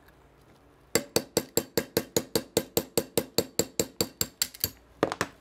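Small hammer tapping a 3/32-inch steel pin punch to drive the locking bolt pin out of a Thompson/Center Encore barrel. The taps are light, metallic and quick, about six a second in an even run of some twenty, starting about a second in, with two more near the end.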